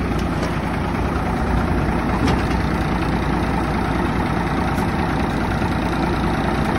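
1990 Peterbilt 379's diesel engine idling steadily.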